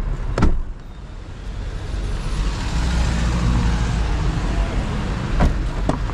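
Road vehicle noise: a steady low rumble with a hiss that swells about two seconds in and holds. There is a sharp knock near the start and two more near the end.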